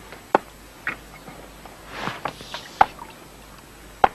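Angling tackle being handled after a fish is landed: a few sharp clicks and knocks as the rod and landing net are moved, with a brief rustle about two seconds in.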